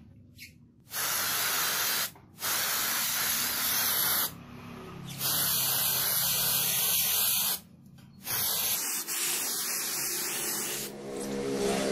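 Aerosol can of acrylic spray paint spraying in four bursts of hiss, each one to two and a half seconds long, with short pauses between.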